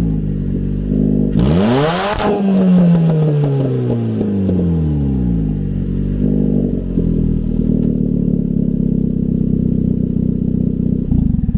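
2012 Chevy Cruze's 1.8-litre four-cylinder engine running with the exhaust manifold removed, open to the air. It falls back from a rev, is revved up sharply once about a second and a half in and drops back, then idles steadily until it cuts off suddenly just before the end.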